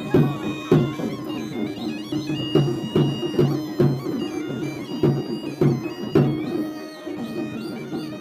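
Garhwali wedding band music: a masak baja (bagpipe) melody over a steady drone, with a drum beating at an even pace.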